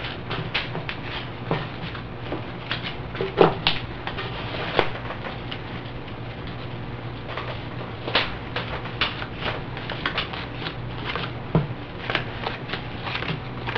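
Playing cards being picked up in rows and dealt back out onto a table: an irregular string of light clicks and taps, with a few louder snaps.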